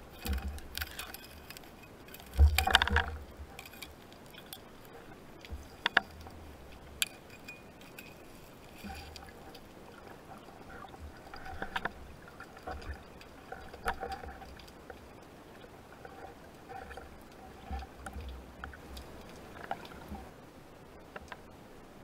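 Underwater sounds of a spearfishing dive: low rumbles of water moving against the camera and scattered sharp clicks and knocks. There is one louder thump with a rush of noise about two and a half seconds in.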